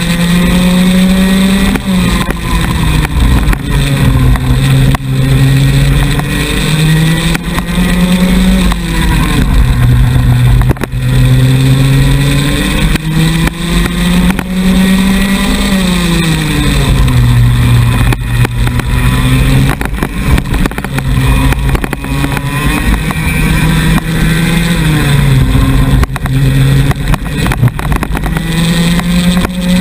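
Junior racing kart's 100cc two-stroke engine heard from onboard at full race pace. The revs climb steadily along the straights and fall sharply as the kart brakes for each corner, about four times.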